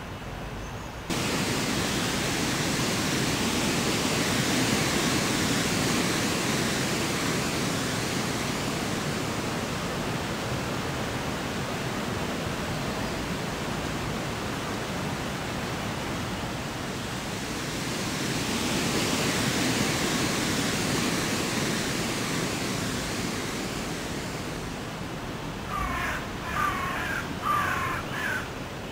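Steady outdoor rushing noise that starts abruptly about a second in and swells and fades twice. Near the end a bird calls several times in quick succession.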